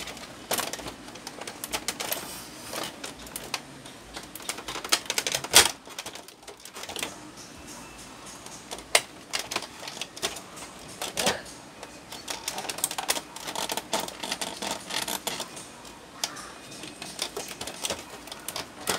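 Irregular plastic clicks, snaps and knocks as the casing of a Canon PIXMA MP287 printer is pried and taken apart by hand. The loudest knock comes about five and a half seconds in.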